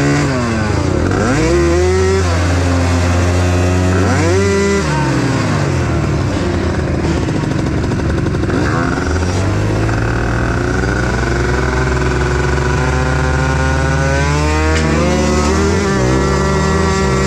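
Small youth racing ATV engines revving hard, their pitch repeatedly climbing and dropping with throttle and gear changes. Near the end several engines are heard at once at different pitches.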